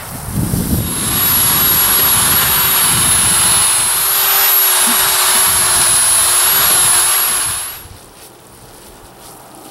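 Electric drill with a paddle mixer running steadily for about seven seconds, with a high motor whine, churning a wet vermiculite chimney-insulation mix in a plastic tub. It stops near the end, leaving quieter rustling as the mix is worked by hand.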